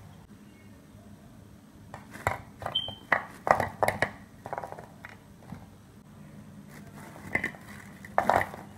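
Stainless wire-mesh skimmer clinking and tapping against a plate as fried pakoras are tipped off it. There is a quick cluster of knocks with one high ping about two seconds in, and another short group of taps near the end.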